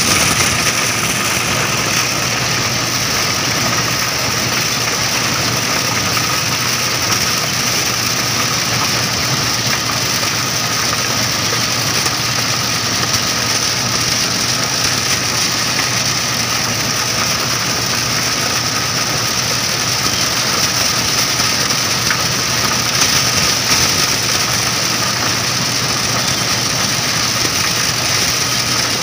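Crown MCH PJ-2000 Star combine harvester running steadily as it cuts and threshes corn stalks, its engine and machinery heard from the operator's seat.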